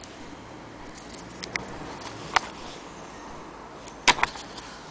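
Handling noise: a few sharp clicks and taps as the stitched strap and fabric scraps are handled and set down on the floor, the loudest a quick double click near the end, over a steady faint hiss.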